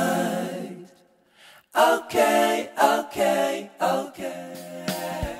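Outro music of unaccompanied singing voices: a held note fades out about a second in, then after a short pause comes a run of short sung syllables.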